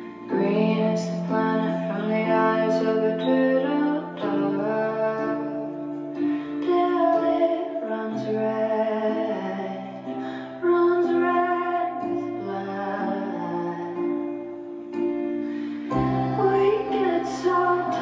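A slow song with a female singing voice played through Sonus Faber Duetto active speakers and heard through a phone's microphone in the room. Held chords change every few seconds.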